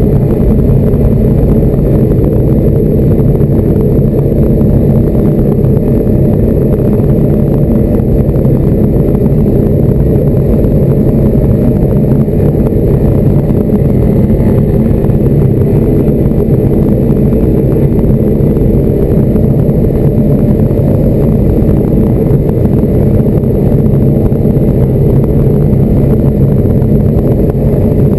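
Diamond DA40 light aircraft's piston engine and propeller running steadily, heard from inside the cockpit.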